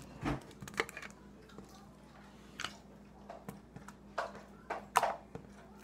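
Green slime with foam beads in it being poked, pressed and squeezed by hand, giving a string of about ten irregular, short squishy pops and clicks, the loudest near the end.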